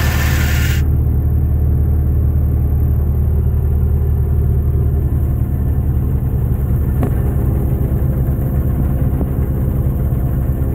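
New Holland 3630 tractor's diesel engine running steadily at a constant speed, heard close up from the driver's seat.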